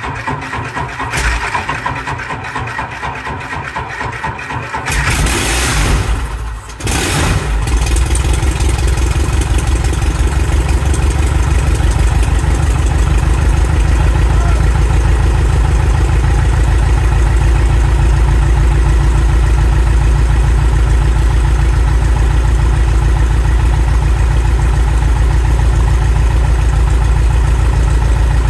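Van's RV-6A's piston aircraft engine turning over on its starter in a rapid, regular rhythm for about five seconds, catching in a loud surge, faltering for a moment around seven seconds in, then settling into steady running at idle: the engine's first start.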